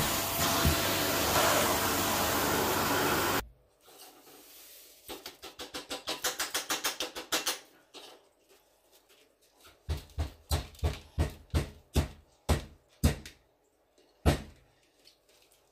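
Vacuum cleaner sucking through its hose on carpet, switched off abruptly about three and a half seconds in. Then a run of fast rattling clicks, about five a second, as beads and glitter are shaken out of a glass jar onto the carpet, followed by a series of separate knocks about two a second and one sharper knock near the end.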